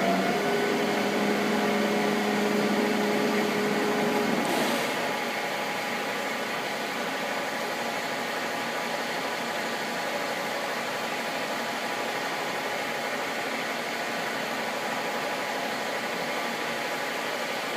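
Gisholt 3L turret lathe running with its spindle turning in the high speed range, a steady machine hum. About four and a half seconds in there is a brief hiss and the lower notes drop out. It then runs on slightly quieter with a different, higher steady note, as the spindle speed changes.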